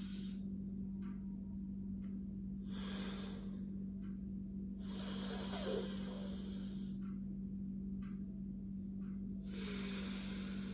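Slow, deliberate nasal breathing of alternate-nostril pranayama (nadi shodhan): three separate breaths, with the longest in the middle and pauses between them where the breath is held. A steady low hum runs underneath.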